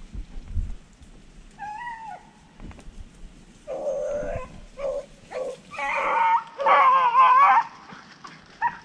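Rabbit-hunting dogs baying, likely on the rabbit's trail: a run of drawn-out, wavering calls that get longer and louder, the last lasting about a second and a half.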